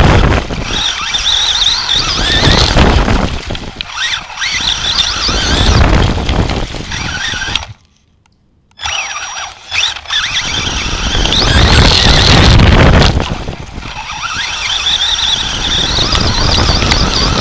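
Onboard sound of an Associated SC10 RC short-course truck driving over grass: a high whine from its motor and gears rises and falls in pitch with the throttle, over the rumble of the tyres and chassis. It goes almost silent for about a second near the middle, then picks up again.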